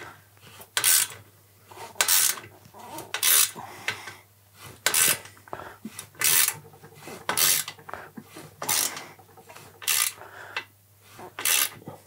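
Ratchet wrench being worked in short strokes to tighten an exhaust pipe clamp: a brief rasp of ratcheting clicks about every second and a half, nine or so strokes in a row.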